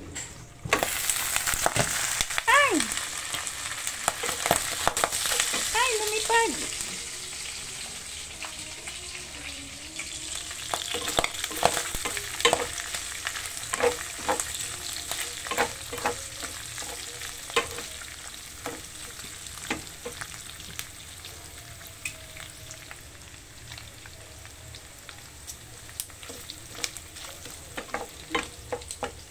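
Diced pork fat sizzling in hot oil in a frying pan as it is fried until brown, with a wooden spatula stirring and clicking against the pan. The sizzle jumps louder about a second in and eases somewhat after about ten seconds.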